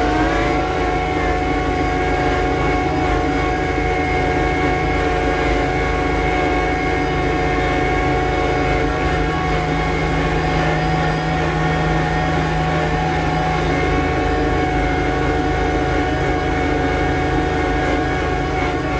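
Yanmar 424 compact tractor's diesel engine running steadily, its engine speed rising slightly just at the start and then holding even.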